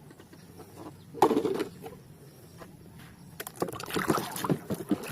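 Water splashing and sloshing as a plastic toy is rinsed in a tub of water: one splash about a second in, then a busier run of splashing and knocking near the end.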